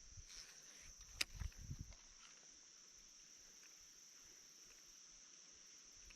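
Faint, steady high-pitched insect chorus, like crickets. A sharp click about a second in, followed by a few low thumps.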